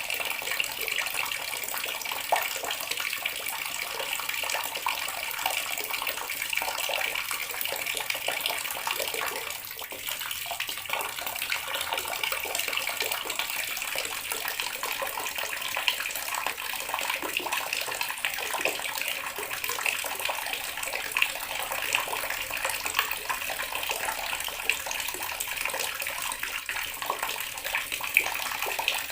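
Water running steadily from a tap, a continuous splashing stream that dips slightly in level about ten seconds in.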